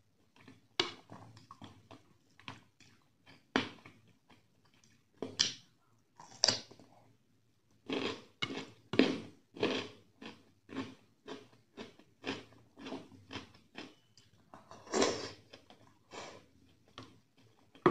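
Close-miked wet chewing of a mouthful of rice and chicken curry, a run of moist smacking clicks at about three a second, sparser in the first half, along with fingers squishing through the curry-soaked rice.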